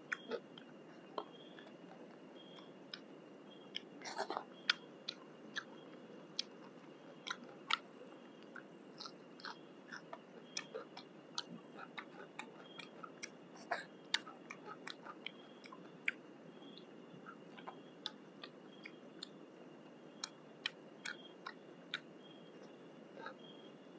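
A person eating with his fingers from a banana leaf: small irregular clicks and crunches of chewing and of picking at food, a few a second. Under them run a steady low rush and a faint thin high tone.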